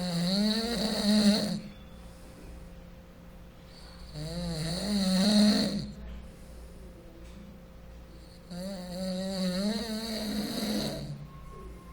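Snoring: three long, rattling snores, each about two seconds long, rising and wavering in pitch, coming about every four and a half seconds with quieter breathing gaps between them.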